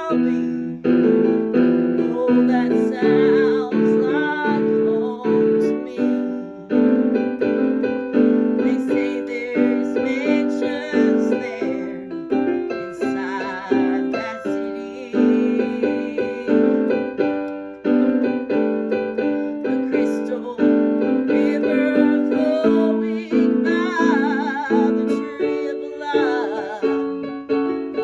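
Piano song: steady piano chords and runs, with a woman's voice singing in phrases over them, its held notes wavering with vibrato.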